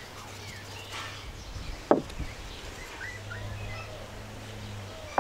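Birds chirping in the background, with a sharp knock about two seconds in and another right at the end. A faint low hum runs through the second half.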